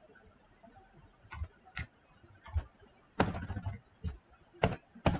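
Scattered keystrokes on a computer keyboard as a number is typed in, with a quick run of keys about three seconds in.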